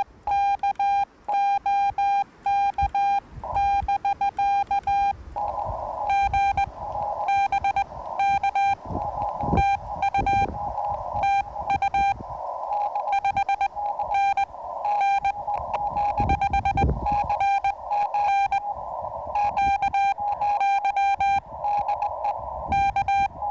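Morse code from the Yaesu FT-891 transceiver: a single steady tone keyed on and off in dots and dashes. From about five seconds in, receiver hiss fills the gaps between the characters, and there are low thumps around ten and seventeen seconds in.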